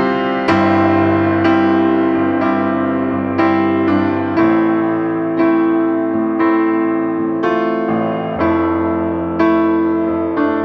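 Background piano music: slow, gentle notes and chords struck about once a second, each ringing out and fading before the next.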